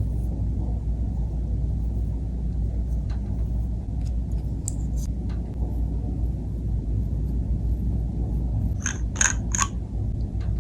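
Steady low rumble with scattered light clicks and taps, and three quick sharp clicks close together near the end, from makeup packaging being handled.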